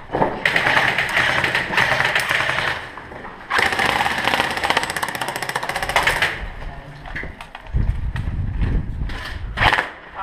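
Airsoft rifle firing on full auto in two long, rapid bursts, one after the other, followed by scattered clicks and low handling noise near the end.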